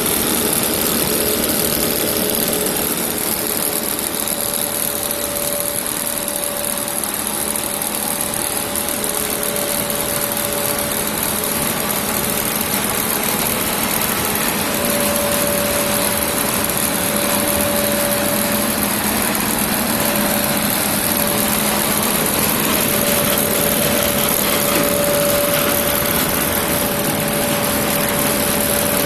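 Dry pet-food extrusion line running: a steady industrial machine hum of motors and drives, with a held mid-pitched whine that drops out and returns a few times.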